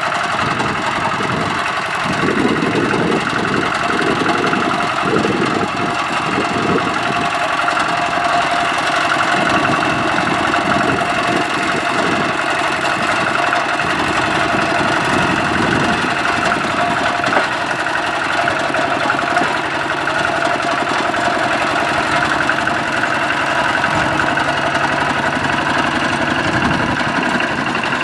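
Kubota ZT120 walking tractor's single-cylinder diesel engine running steadily with a rapid, even beat, working under load as it pulls a trailer through mud.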